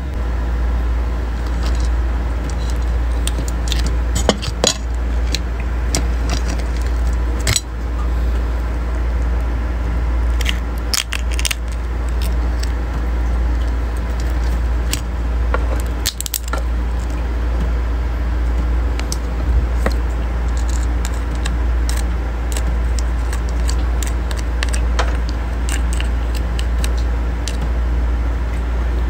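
Eating by hand from a plate: scattered clicks and clinks of chopsticks against a ceramic plate and small freshwater crabs being broken apart, over a steady low hum.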